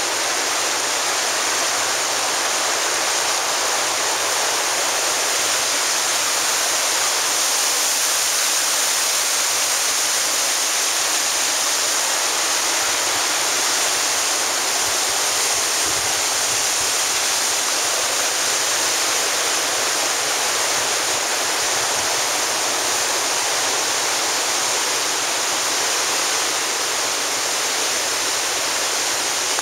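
Rensselaerville Falls: creek water pouring over rock ledges in a loud, steady rush.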